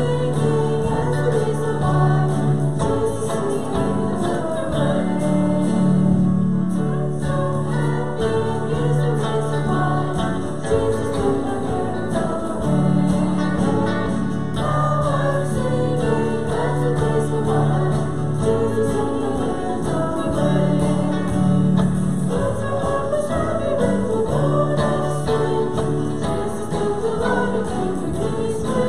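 Congregation singing a hymn together with instrumental accompaniment, steady bass notes under the melody.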